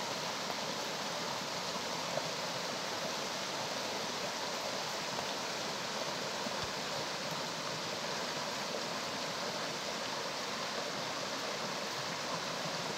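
Shallow, rocky stream rushing steadily over stones and small rapids.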